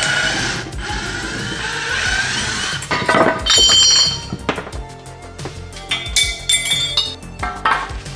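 Background music over metallic clinks and knocks from lengths of copper pipe being handled, with one bright ringing clang about three seconds in.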